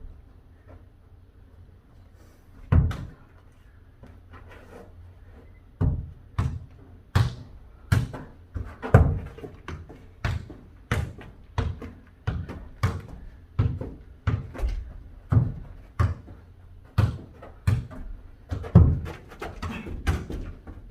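A football kicked and bouncing on an indoor floor during a mini foot-volleyball rally: one thud about three seconds in, then a steady run of thuds a little more than one a second, kick and bounce in turn, from about six seconds on.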